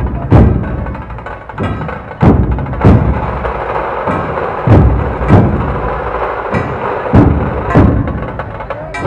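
Dhol-tasha troupe drumming: massed large barrel dhols and tashas play a constant busy rhythm. Heavy unison strokes land in pairs about every two and a half seconds.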